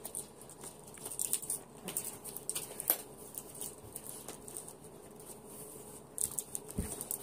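Light rustling and scattered small clicks of cardboard packaging being handled as a small pet heater is taken out of its box.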